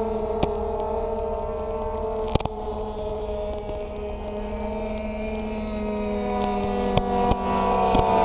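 Electrical whine from a crashed quadcopter with a burnt-out ESC: several steady tones drifting slowly in pitch, with a few sharp clicks.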